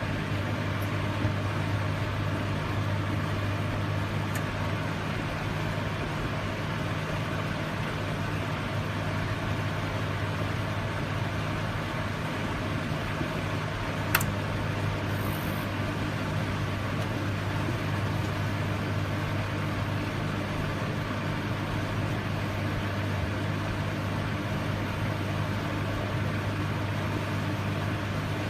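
Microwave oven running: a steady low hum with an even whir, and a single sharp click about halfway through.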